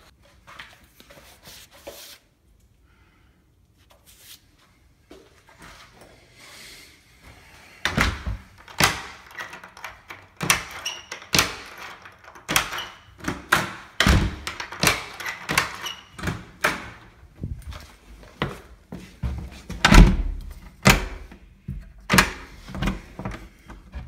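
A newly installed deadbolt on an interior door being tested: the key turning the bolt in and out and the door shut against its strike plate, a run of sharp clicks and thunks that starts about a third of the way in, with one loud thunk a few seconds before the end.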